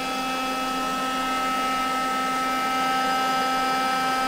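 Hoover Jovis Cyclean 7.2 V cordless handheld vacuum running steadily at full speed, its motor and fan giving an even whine. It runs on an ageing NiMH battery pack that has begun to degrade and is not quite as powerful as it once was.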